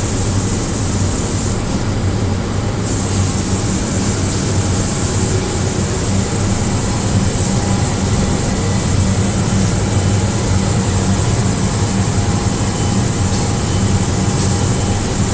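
Steady low electric hum with a strong high hiss over it, from an electrostatic spray-painting line running: the booth's fans and electric motors.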